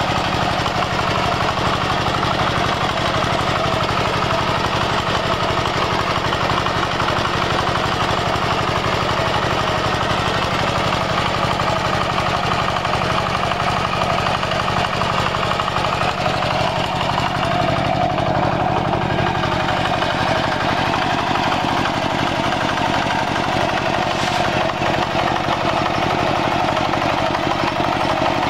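Walking tractor's single-cylinder diesel engine running steadily under load while pulling a plough through soil, with a fast, even knocking beat.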